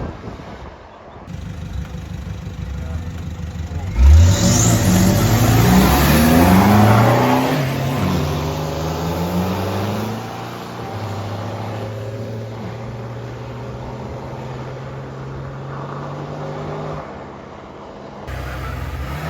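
Mud drag vehicle's engine: a steady note, then a sudden hard launch about four seconds in, revving up with rising pitch for several seconds before settling into a steady high-revving run, and dropping off near the end.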